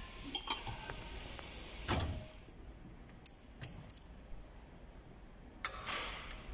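Small metal tools and fork parts clinking and tapping during hand reassembly of a motorcycle fork leg clamped in a bench vise. A sharp clink comes just after the start and a duller knock about two seconds in, followed by a few light ticks and a brief rustle near the end.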